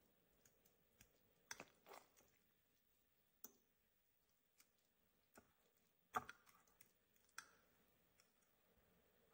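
Metal fork mashing avocado in a bowl: soft, sparse mashing with irregular light clicks of the fork tines against the bowl, the sharpest about six seconds in.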